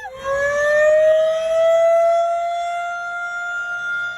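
Outdoor tornado warning siren winding up during a test, its pitch rising over the first second or two and then holding in a steady, loud wail.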